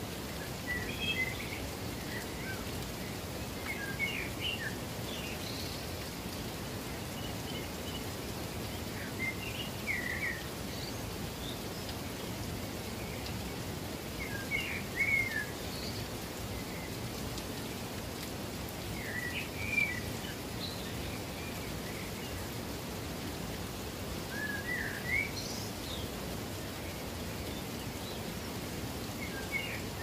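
A steady hiss of falling water, with a bird singing short chirping phrases every few seconds over it.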